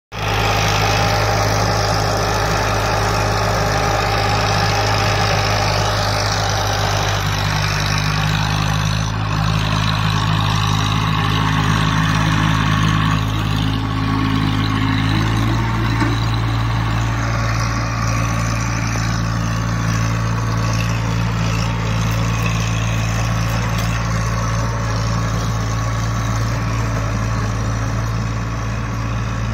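Eicher 4WD tractor's diesel engine running steadily under load while driving a rotary tiller through the soil. The engine note shifts slightly about halfway through.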